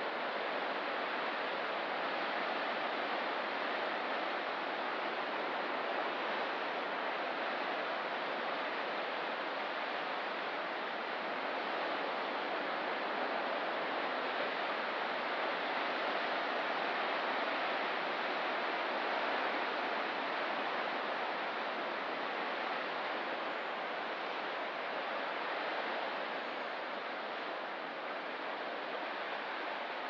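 Ocean surf on a rocky coast: an even, steady wash with very little rise and fall.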